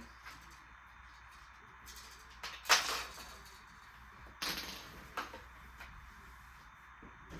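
Glass marbles clattering along a plastic marble run: a sharp, loud clatter a little under three seconds in, another about a second and a half later, and a smaller click soon after.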